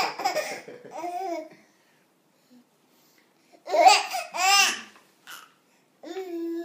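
A baby laughing and babbling in bursts. A laugh trails off at the start, a louder burst of high, squealing laughter comes about four seconds in, and more laughter starts near the end.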